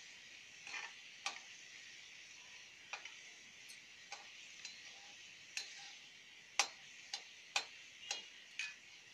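Cumin seeds and garlic sizzling in hot oil in a metal kadhai, a steady hiss, while a spatula stirs them and clicks and scrapes against the pan about a dozen times at an uneven pace, the loudest clicks in the second half.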